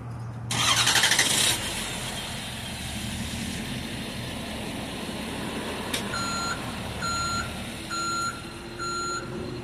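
Ford Power Stroke diesel work pickup starting up about half a second in, then running. From about six seconds its reversing alarm beeps steadily, a short beep every half second or so.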